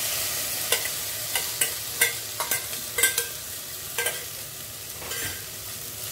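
Methi leaves and onion sizzling in a hot nonstick pot as boiled potato cubes are added and stirred in. A spoon and spatula knock and scrape against the bowl and pot in a dozen or so irregular sharp clinks, most in the first four seconds.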